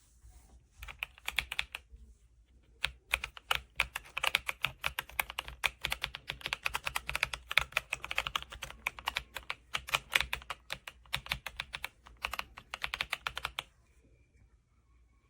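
Typing on a Royal Kludge S98 mechanical keyboard with pale green tactile switches and PBT keycaps: a fast, uneven run of keystroke clacks. It starts about a second in, pauses briefly near two seconds, and stops about a second and a half before the end.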